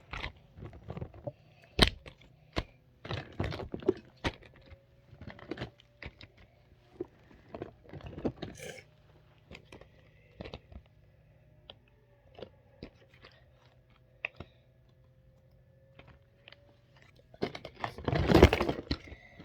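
Fidget toys being handled: irregular light clicks and knocks, sparse in the middle, then a dense, louder burst of rustling and clatter near the end.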